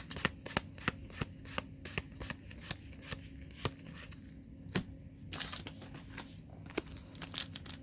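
Magic: The Gathering trading cards being flipped through one at a time in the hands, each card giving a crisp snap or click, a few a second. About five seconds in comes a longer papery rustle.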